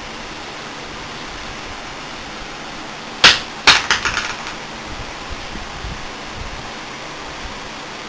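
Two sharp metallic clacks about half a second apart, then a few lighter clicks, as the sheet-metal drive cage and drive bracket of a desktop PC are handled. A steady hiss runs underneath.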